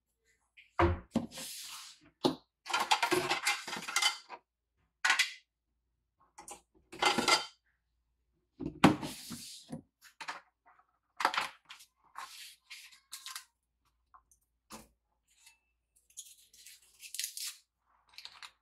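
Kitchen items being handled and set down on a countertop: a ceramic plate, a knife and a plastic tub of ingredients, a string of separate clatters, clinks and rustles with short silences between them.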